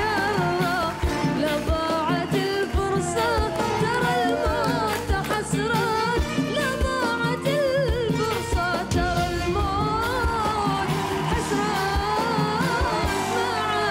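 A boy singing a melismatic Gulf Arabic song, with band accompaniment and a steady drum beat.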